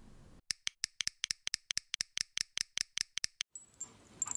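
A rapid, uneven run of sharp, dry clicks, about seven a second, lasting about three seconds and stopping suddenly. It is followed by a faint rustling noise near the end.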